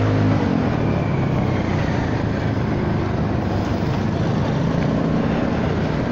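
Honda Forza 300 scooter riding in traffic: its single-cylinder engine note falls as the throttle eases off about half a second in, then mostly steady wind and road noise with a low engine hum underneath.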